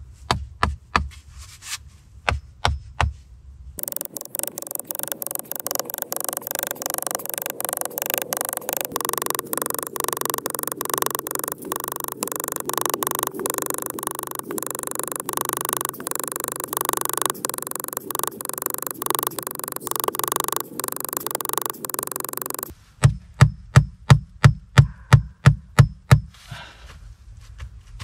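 A hatchet knocking wooden stakes into a packed-earth wall to fix a stick shelf: a few sharp knocks, then a long busier stretch of rapid, continuous knocking, then about a dozen hard strikes at roughly three a second near the end.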